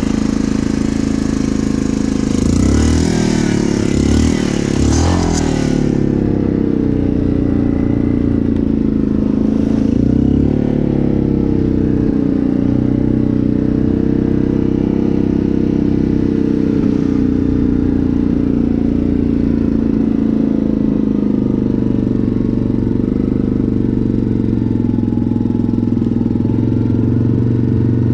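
Yamaha Grizzly ATV's engine running under way, revving up and down several times over a few seconds with a rushing hiss alongside, then holding a steady note.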